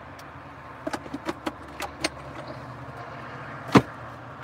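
Several light clicks and taps, then one much louder knock a little before the end, over a steady low hum.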